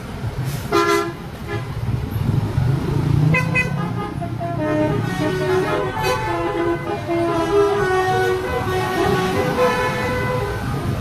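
Buses' 'telolet' multi-tone musical horns playing tunes of quickly changing notes: a short burst about a second in, then a long melodic run from about three seconds on. Under it runs a steady low engine and road rumble.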